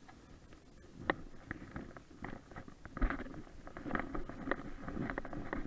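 Irregular light clicks and knocks from a boat rod and reel being worked while line is wound in, over low, uneven noise.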